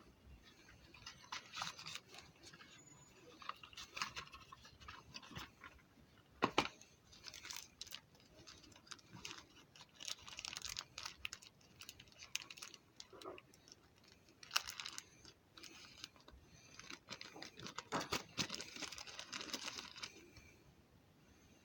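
Hands handling a product and its packaging: irregular rustling and crinkling with small clicks and taps, denser in a couple of stretches.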